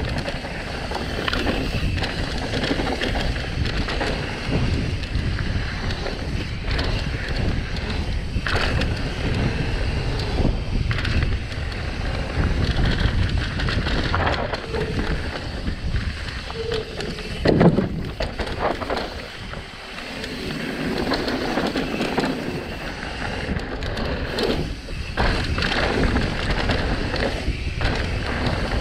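Mountain bike riding fast down a rough dirt downhill trail: wind rushing over the microphone, with the tyres and the bike rattling and knocking over bumps again and again.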